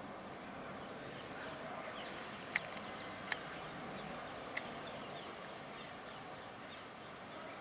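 Steady outdoor background noise, with three short sharp clicks or chirps a little under a second apart near the middle, and a few faint high chirps.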